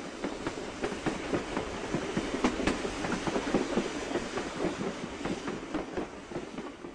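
A steady rumble with rapid, irregular clacking and rattling, fading away near the end.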